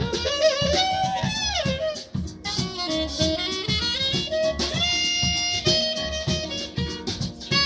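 Live jazz: a tenor saxophone plays a melodic line over a steady beat from double bass and harp. The line breaks off briefly about two seconds in, then carries on.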